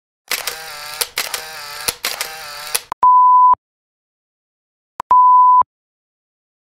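Electronic logo sound effect: about two and a half seconds of buzzy, stuttering digital noise, then two steady high beeps, each about half a second long and about two seconds apart.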